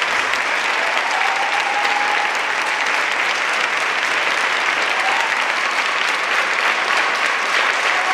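Audience applauding: dense, continuous clapping that holds at an even level throughout.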